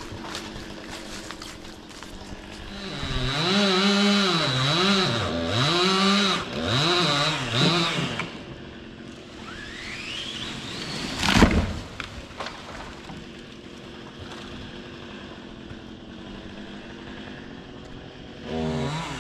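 Chainsaw revving up and down several times, its pitch swinging with the throttle, then idling lower. About halfway through there is one sharp, heavy thud, the loudest sound here, and the saw revs again right at the end.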